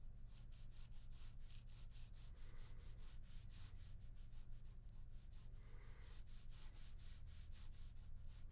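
Ballpoint pen scratching on paper in quick, short sketching strokes, several a second, over a faint steady low hum.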